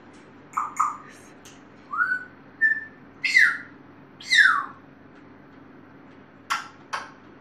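Pet parrot whistling: a string of short whistles, one rising, one held level and two sliding down in pitch, with short sharp chirps near the start and two more near the end.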